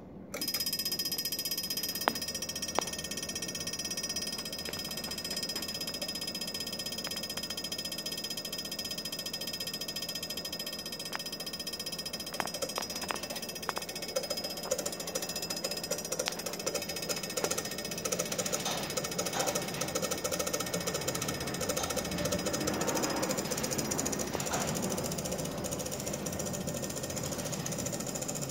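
Steady rapid chattering and a high whine from a high-voltage discharge rig running on a low-pressure bell jar. Sharp spark clicks come a few times in the first half, and the noise grows fuller in the second half.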